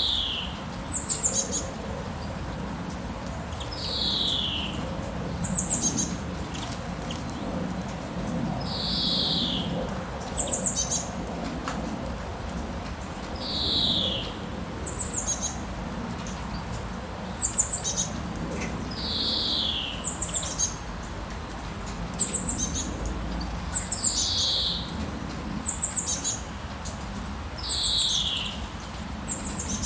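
Birds singing over a steady hiss of rain: a downward-slurred whistle about every four to five seconds, with short, high chirps in between.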